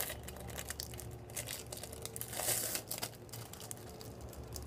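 Hands tearing and handling sliced cheese, a light crinkling and rustling with scattered small clicks, and a louder rustle about two and a half seconds in.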